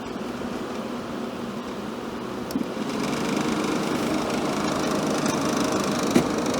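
Restored 1960s Emerson Quiet Kool window air conditioner running: a steady mechanical hum with rushing air that grows louder, with a sharp click about two and a half seconds in and another near the end.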